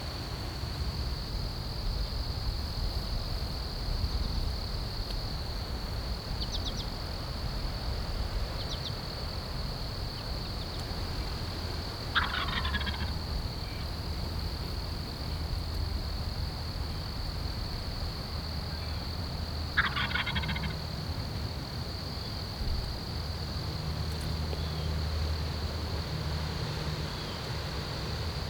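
Wild turkey gobbler gobbling twice, about seven or eight seconds apart, each gobble a rattling call lasting about a second. A steady high-pitched whine and low wind rumble run underneath.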